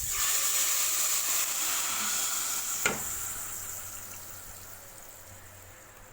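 Tomatoes hitting hot oil in a pot and sizzling loudly, the sizzle dying down gradually as it settles. One sharp knock, like a utensil against the pot, about three seconds in.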